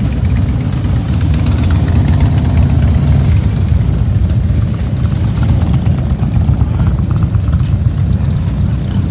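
A procession of V-twin cruiser motorcycles rolling slowly past one after another, their engines running at low speed in a steady, loud, deep rumble.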